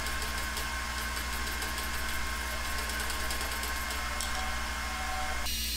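Steady low machine hum with an even hiss, shifting abruptly near the end.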